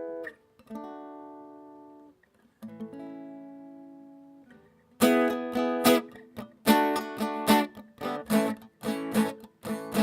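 Acoustic guitar: two chords strummed once each and left to ring out, then steady rhythmic strumming from about halfway, the intro to a song.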